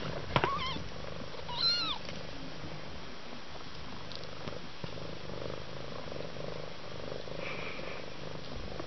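A cat purring steadily, with two short, high, squeaky calls in the first two seconds.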